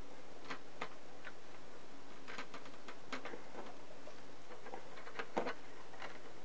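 Scattered small clicks and taps, about ten of them, from handling a plastic laptop screen bezel and peeling the backing off its freshly laid double-sided tape. The sharpest click comes about five seconds in.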